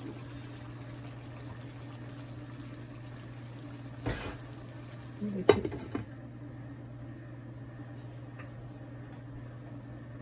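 Chicken curry simmering in a frying pan over a steady low hum. A knock comes about four seconds in, then a glass pot lid clatters onto the pan, the loudest sound. After that the high hiss of the simmering drops away under the lid.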